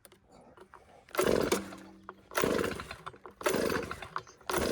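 Gas leaf blower's small engine being pull-started, about four rough pulls roughly a second apart that do not yet keep it running. It is a cold start after two weeks sitting unused.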